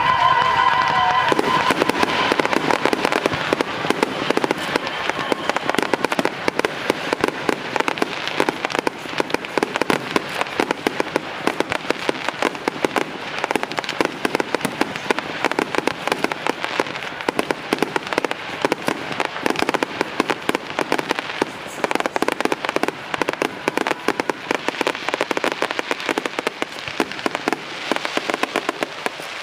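Aerial fireworks display crackling: a dense, continuous run of rapid small pops that goes on throughout, thinning and swelling in places.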